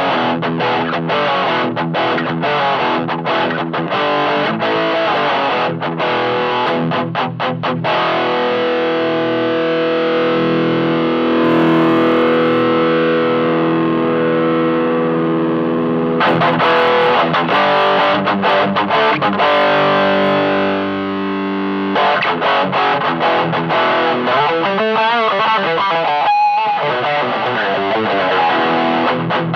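Distorted electric guitar played through a Hotone Nano Legacy Eagle's Heart mini amp. Short, choppy chords with stops come first, then a chord is left ringing for several seconds, then rhythmic playing resumes.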